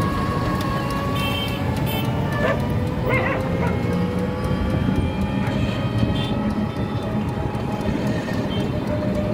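Busy city street traffic: engines running steadily, with a few brief sharper sounds in the first few seconds.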